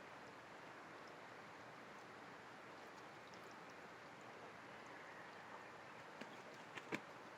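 Near silence: a faint, even outdoor background hiss, with a few small clicks in the last second and a half.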